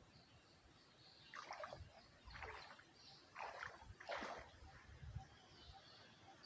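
Faint birds chirping in the trees, with four short rustling swishes in the middle, each about half a second long.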